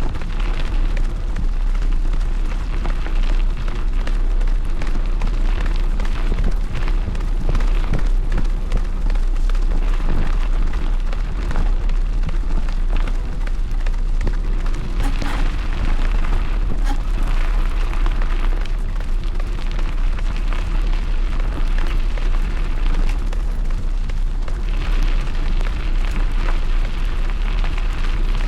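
Wind buffeting the microphone of a bike on the move, a steady low rumble, with many small knocks and rattles from the bike going over the ground.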